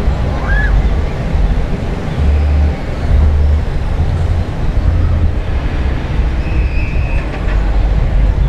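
Loud, uneven low rumble that surges and dips, with a brief faint high tone about half a second in and another about a second long late on.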